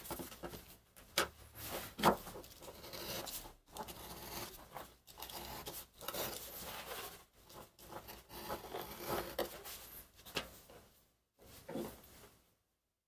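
Utility knife slicing through a sheet of leather in short, irregular scraping strokes, with the stiff leather rustling as it is handled and a few sharp clicks, the loudest about two seconds in.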